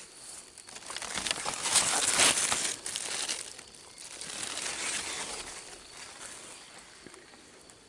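Rustling and crinkling of leaves and dry straw mulch as someone moves in among zucchini plants. It is loudest about two seconds in, swells again around five seconds, then fades.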